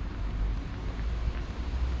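Wind buffeting the microphone: a low, uneven rumble with a faint hiss of outdoor noise above it.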